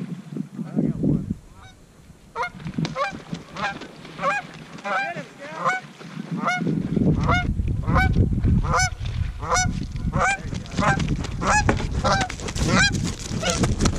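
Canada goose honking: a steady series of two-note honks, about two a second. A low rumbling noise joins it about halfway through.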